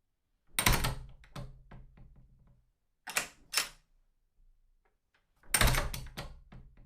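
A heavy thud with a rattling tail about half a second in, two short clicks around three seconds, then another heavy thud with rattles near the end.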